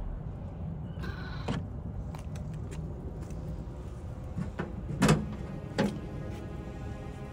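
Tesla charging connector being handled at its wall-mounted charger holster, giving two sharp clunks about five and six seconds in. A short whir comes about a second in.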